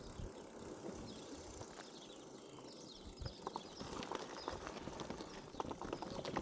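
Bicycle coasting slowly over a bumpy grass and gravel track. Soft rolling noise at first, then scattered irregular clicks and rattles from the bike and its handlebar bag from about three seconds in.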